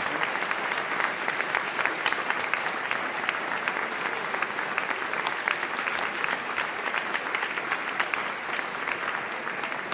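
Audience applauding: many people clapping at a steady level, easing a little near the end.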